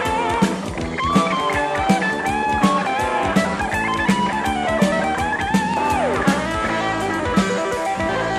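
Recorded rock music: an electric guitar plays a lead line with bent and sliding notes over a steady drum beat.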